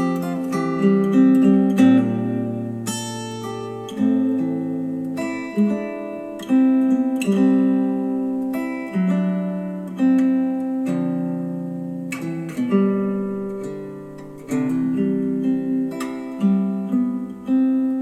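Instrumental acoustic guitar music played back through KEF Q350 bookshelf speakers: chords plucked and strummed, a new one struck about every one and a half to two seconds and left to ring and fade.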